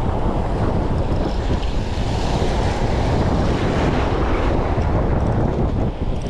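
Wind buffeting the microphone over the steady wash of choppy sea waves, a continuous rushing noise.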